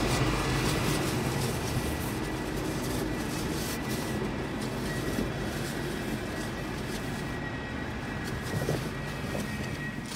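Rotary snowplow running steadily, a low engine rumble with a faint high whine, fading over the first few seconds as it moves off.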